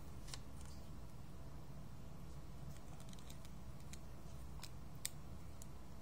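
Small plastic toy pieces clicking and tapping as they are handled and pressed together: a scatter of light clicks, the sharpest about five seconds in, over a low steady hum.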